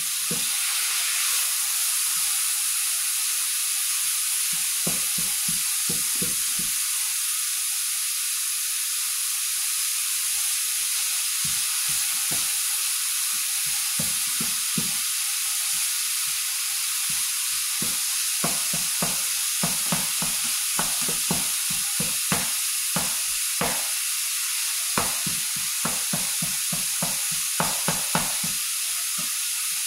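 Ground beef sizzling steadily in a frying pan as a plastic slotted spatula chops and stirs it, the meat still partly frozen. The spatula taps and scrapes against the pan, in a few scattered bursts and then in quick, repeated strokes over the last ten seconds or so.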